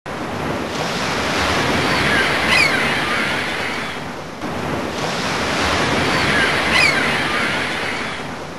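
Ocean surf sound effect: waves washing in, swelling and fading twice, with faint high whistling glides at the peak of each swell.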